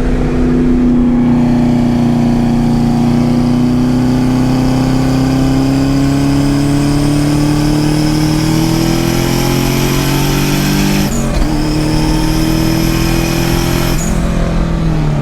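Turbocharged car engine pulling under load through an exhaust fitted with four turbo whistles. The engine note climbs slowly with a high whistle rising alongside it, breaks off briefly about 11 seconds in, climbs again, and drops near the end.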